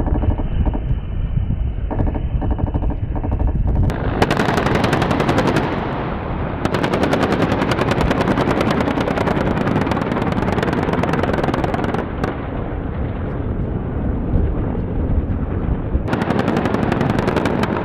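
A helicopter running, then rapid automatic gunfire from about four seconds in, in three long bursts with a rumble between them.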